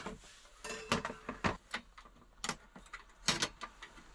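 Irregular small clicks, taps and knocks of spice containers and kitchen things being handled as whole spices are got out for a pot of chai, with the loudest cluster of knocks about three and a half seconds in.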